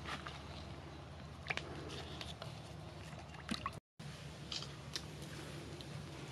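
Water bubbling in a wok over a wood fire, a steady hiss, with a few short taps and clicks as peeled bamboo shoots are handled; the sound cuts out for a moment about four seconds in.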